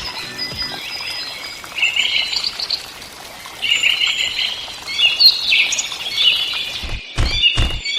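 Birds chirping and twittering over a light hiss. About seven seconds in, a regular beat of sharp thumps starts, roughly three a second.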